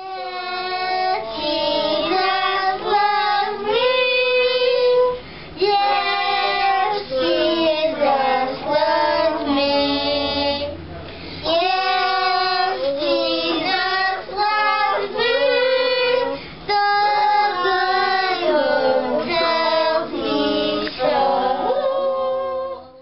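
A group of children singing a song together in phrases with short pauses between them. The singing cuts off abruptly at the end.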